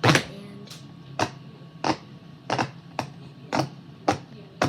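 Bubbles of a jumbo silicone pop-it fidget toy being pressed one after another: a sharp pop about every half to two-thirds of a second, eight or so in all.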